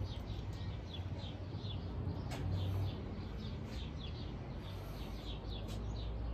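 Small birds chirping, a steady string of short, high, downward-sliding chirps about three a second, over a low steady hum. One sharp click comes about two and a half seconds in.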